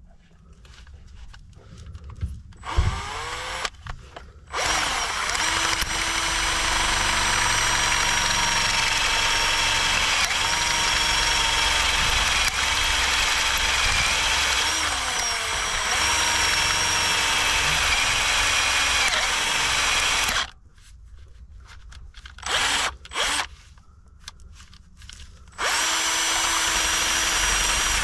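Electric drill boring out the hole of a broken stud in an exhaust manifold flange, enlarging it to tapping size for a new thread. A few short bursts, then the drill runs steadily under load for about sixteen seconds with slight dips in pitch. It stops, gives two brief bursts, and runs steadily again near the end.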